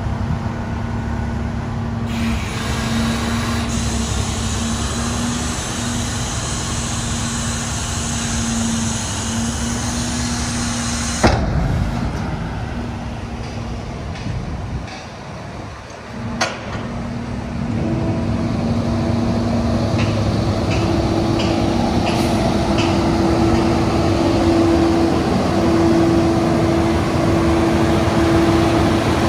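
Rear-loader garbage truck's diesel engine running at idle with a steady hum, a hiss through the first part, and a sharp knock about eleven seconds in. About eighteen seconds in, the hum steps up to a higher pitch and carries on steadily.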